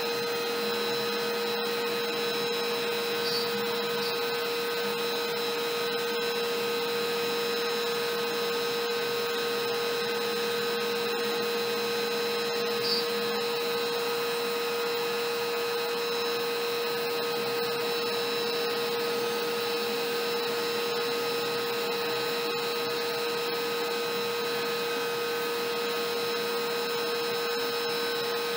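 A LowRider CNC's trim router runs steadily at its lowest speed setting, its single-flute upcut bit cutting MDF. The result is an even, constant whine with a few fixed tones over a rushing noise.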